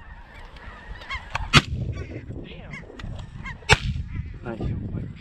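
Two shotgun shots about two seconds apart, over a steady chorus of snow goose honking.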